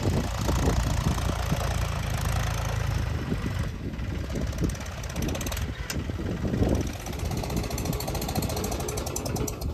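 Tractor engine running with a loose, irregular mechanical rattle over it, cutting off sharply at the end.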